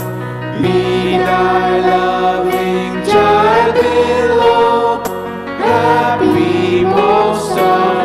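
A slow prayer hymn sung in long held notes, with steady low accompanying notes underneath.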